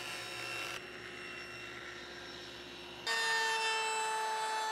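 A low, steady hum, then about three seconds in a sanding drum starts a steady, higher motor whine with a hiss as a curved piece of wood is pressed against it to shape it.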